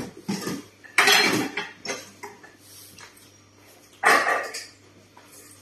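Pots and dishes clattering in a kitchen sink as they are washed, in a few sudden bursts, the loudest about a second in and about four seconds in.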